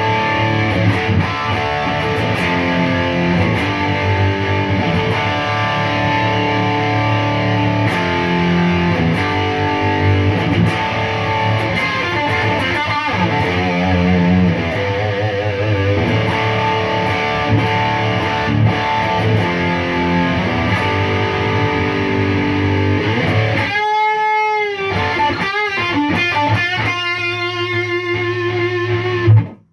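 Electric guitar played with distortion over a steady low bass line, its notes held with wide, wavering vibrato. A held chord wavers strongly about 24 seconds in, and the playing stops abruptly near the end.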